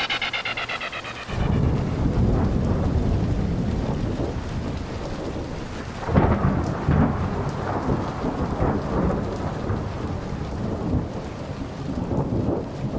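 Electronic music dies away in an echoing tail in the first second or so, then a steady low rumble of wind buffeting the microphone takes over, swelling in gusts about six seconds in and again near the end.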